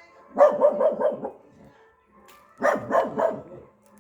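Dog barking in two quick runs of several barks each, the first just after the start and the second a little past halfway.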